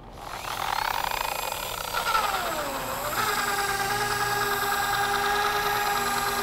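Chemical Guys TORQ R rotary polisher's electric motor whining as it spins up with a compound-loaded foam pad on car paint. Its pitch sags about two seconds in, then settles into a steady, higher whine about three seconds in.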